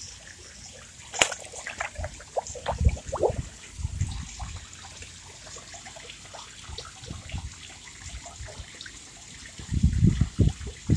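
Shallow pool water trickling and splashing around wading feet, with a run of small splashes and drips from about a second in. Low thuds come in around the fourth second and again near the end.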